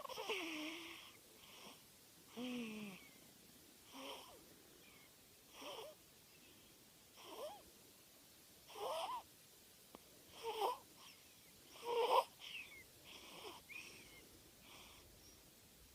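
Snoring in quick, even breaths, about one every one and a half seconds, each with a squeaky, wavering whistle like a wheeze.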